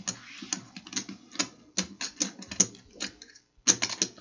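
Poker chips clicking and clacking as they are handled at the table: a run of sharp, irregular clicks with a brief pause a little after three seconds in.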